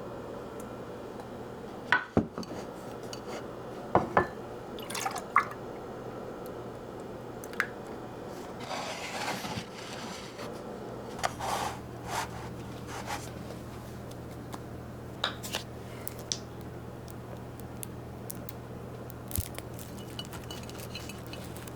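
Tableware being handled: scattered clinks and knocks of dishes and glass, with a short spell of liquid sound about nine seconds in, over a steady low hum.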